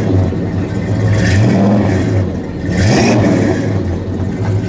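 1970 Dodge Super Bee's 440 Six Pack V8 idling with a rumble at the exhaust tip. The throttle is blipped twice, about a second in and again about three seconds in, each rev rising and dropping back quickly.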